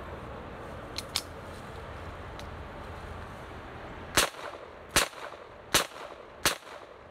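Ruger Mark III 22/45 semi-automatic pistol in .22 Long Rifle with a bull barrel firing four evenly paced shots, each a short sharp crack about three-quarters of a second apart.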